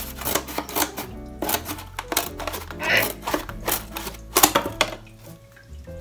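Background music over a run of irregular crisp snips and crunches: cardboard being cut to size.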